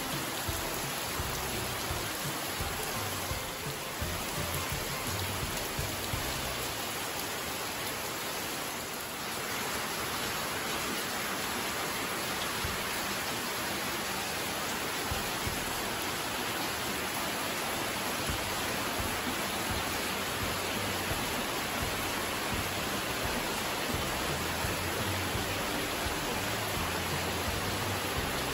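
Heavy rain pouring steadily, an even continuous hiss.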